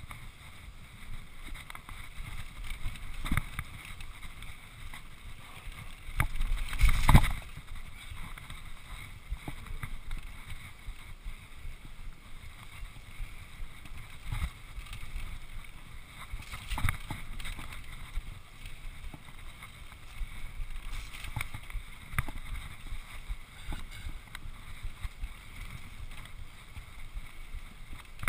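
Norco Revolver 9.2 HT hardtail mountain bike ridden fast over a rough dirt trail: tyres rumbling on the ground, with frequent short knocks and rattles from bumps and wind on the microphone. About six to seven seconds in there is a louder stretch of rumbling and knocking.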